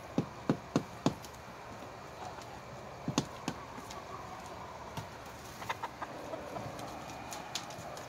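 Chickens' beaks pecking kale scraps off a wooden boardwalk: a quick run of four sharp taps in the first second, a cluster of taps about three seconds in, then scattered lighter taps.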